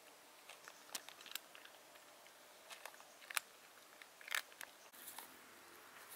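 Cat crunching dry kibble: irregular, crisp crunches as it bites and chews the pellets, the loudest a little past the middle.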